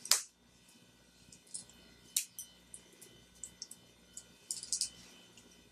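Scattered light clicks and rustles of fingers handling small ribbon bows, elastic and paper wraps in a dog's topknot: a sharp click just after the start, another about two seconds in, and a quick cluster near the end.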